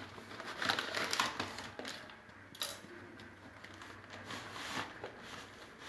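A cardboard shipping box being opened by hand: irregular crinkling, scraping and light knocks of cardboard and packing material, in short bursts with pauses between.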